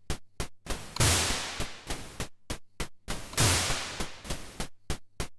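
Synthesized drum pattern from a Behringer Poly D analog synthesizer. Short hi-hat ticks run about four or five a second. Twice, about a second in and again past three seconds, a long white-noise snare hit sounds with a low thump at its start and a slow fade.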